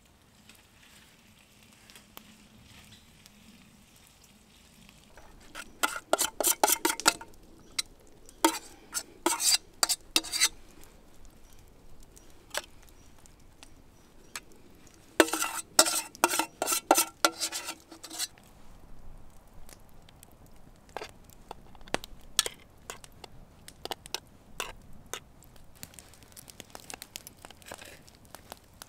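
A metal spoon scraping and clanking against a steel cooking pot and pan in three loud spells as rice and broccoli are spooned out, the metal ringing briefly. After that come scattered lighter clicks of a fork and knife on the pan.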